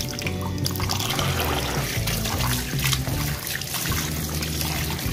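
Tap water running and splashing over chicken livers in a plastic colander as a hand rinses them, with background music playing alongside.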